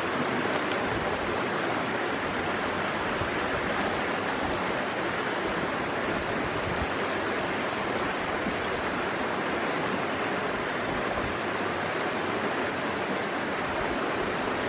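Creek water running over stones, a steady rushing.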